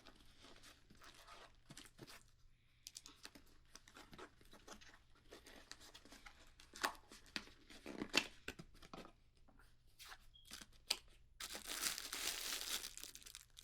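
A package being opened by hand: scattered crinkling and rustling of packaging, then a stretch of tearing lasting about two seconds near the end.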